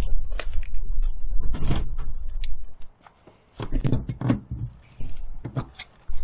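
Metal clinks, knocks and scrapes of a wrench working on a brass hose fitting, in two bursts with a short quiet gap about three seconds in, over a low rumble.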